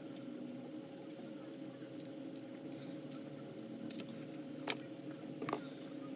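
A few light, sharp clicks and clinks of small metal repair tools handled against a phone, the loudest a little under five seconds in, over a steady low hum.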